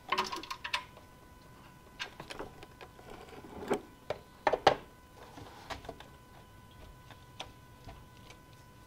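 Ratchet wrench clicking in quick runs as it backs out an oil-pan drain plug, then scattered sharp metal clicks and knocks as the plug and tools are handled, the loudest about four and a half seconds in.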